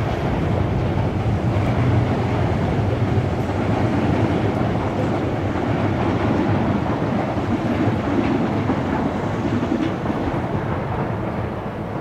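Kintetsu electric train passing close by, its wheels running on the rails with a loud, steady noise.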